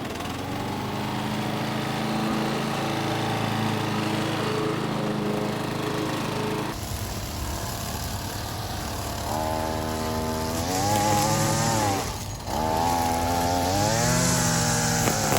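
Gas string trimmer (weed eater) engine running steadily, then revving up and easing back down twice in the second half.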